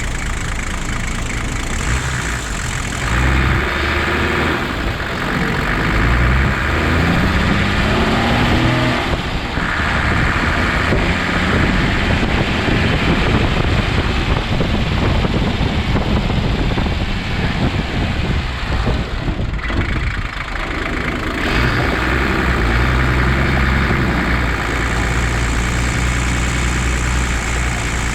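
Toyota Land Cruiser HJ75's 2H straight-six diesel engine running under way, its pitch rising as it revs up twice, with a brief drop in between.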